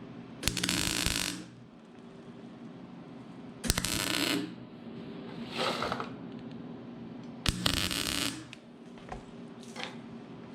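Three short tack welds, each about a second of crackling welding arc, fusing a nut onto a broken-off bolt stub in a mower deck so the bolt can be wrenched out.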